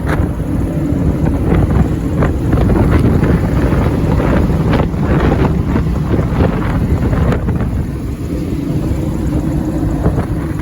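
Direct-fired gas outdoor-air heating unit running with its panel open: a loud, steady low rumble of the burner flame burning straight into the supply airstream, together with the air moving through the unit.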